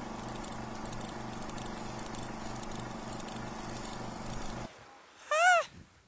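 Sound effect for an animated logo intro: a steady electronic hum with a pulsing low drone over static hiss, cutting off suddenly about four and a half seconds in. A little later comes a single short, loud, high-pitched call that rises and falls in pitch.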